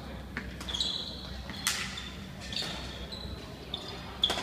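Badminton rackets striking a shuttlecock, sharp pops about every second or so with the loudest near the end, and shoes squeaking briefly on the sports-hall floor in between, in a reverberant hall.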